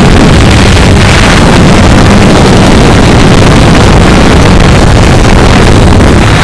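Quanum Nova Pro (Cheerson CX-20) quadcopter's motors and propellers buzzing loudly, picked up by the camera riding on the drone, with wind rushing over the microphone.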